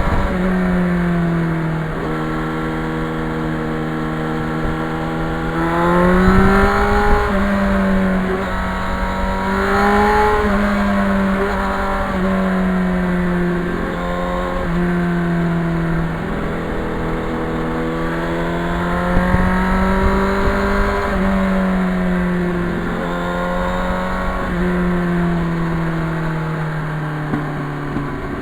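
Yamaha FZR motorcycle's inline-four engine running under way, its pitch rising and falling several times with the throttle, over low wind rumble on the microphone.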